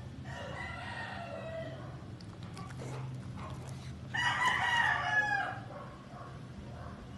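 A rooster crowing twice, a softer crow near the start and a louder one of about a second past the middle, over a steady low hum.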